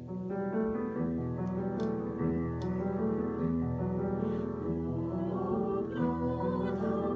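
Piano accompaniment playing the introduction to an art song: a moving line of sustained chords at a steady, gentle pace.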